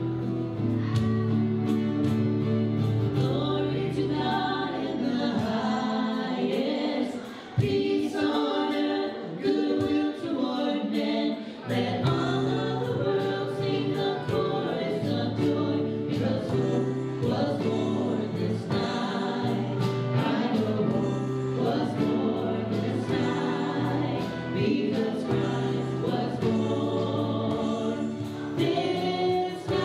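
Live worship band playing a song: singing voices over strummed acoustic guitars and keyboard, with a steady beat.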